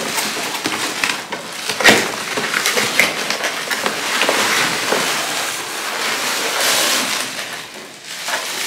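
Cardboard packing inserts and plastic bubble wrap rustling and crinkling as a box is unpacked, with sharp crackles at the start and about two seconds in.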